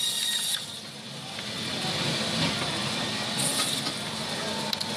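Electric band saw running as its blade cuts through a large fish, with a steady faint whine. The cutting noise eases about half a second in and picks up again briefly later.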